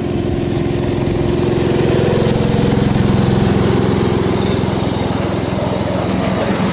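Small gasoline engine of a ride-on miniature diesel-style locomotive running steadily as the train passes close by, loudest about two to three seconds in and easing slightly after.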